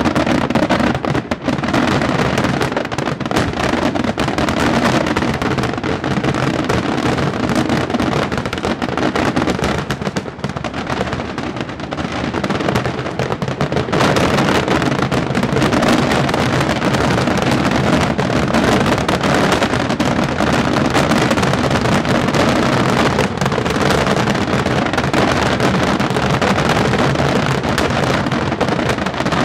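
Daytime fireworks shells bursting overhead in a rapid, unbroken barrage of bangs, growing denser and louder about halfway through.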